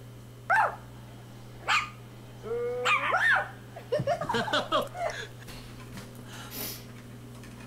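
Short, high yips and whining cries of a small pet animal: two single brief calls about a second apart, then a longer gliding cry and a quick cluster of calls in the middle.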